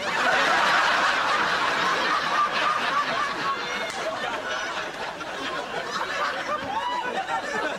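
Audience laughing, loudest just after it breaks out and slowly tailing off.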